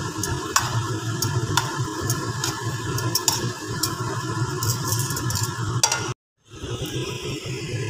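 Rice noodles with cabbage, carrot and pork stir-frying in a hot non-stick wok, sizzling while metal tongs and a spatula toss them, with frequent clicks and scrapes of the metal on the pan. The sound cuts out for a moment a little after six seconds in, then the sizzling goes on more evenly with fewer clicks.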